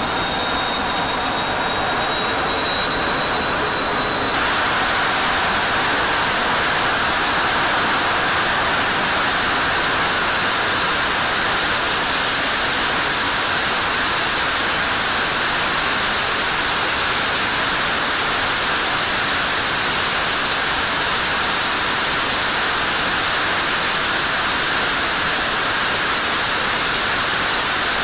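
General Electric F110-GE-100 turbofan running on a test stand, a high turbine whine over a loud rush. About four seconds in it jumps louder into a steady, even rush that buries the whine as the afterburner is lit and held at full afterburner.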